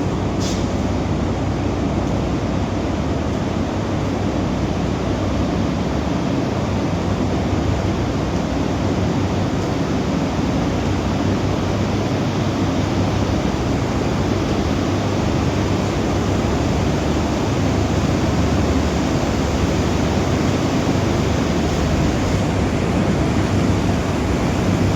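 Ventilation fans of an environmentally controlled poultry house running steadily: a constant rushing noise with a low hum underneath.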